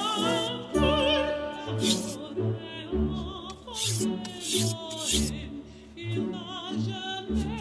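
Background music: operatic singing with vibrato over an orchestral accompaniment with a steady low pulse.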